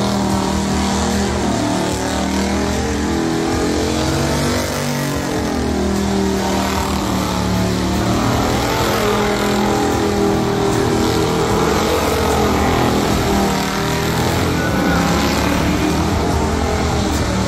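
Race truck's engine held at high revs through a burnout, its pitch wavering up and down as the throttle is worked, over the steady noise of the spinning tyres.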